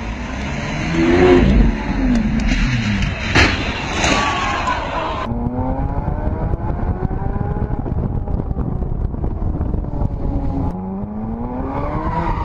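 Sports car engines: first a supercar revving with a sharp knock about three and a half seconds in, then an engine heard from inside an open convertible, accelerating with its pitch rising as it pulls through the gears, twice.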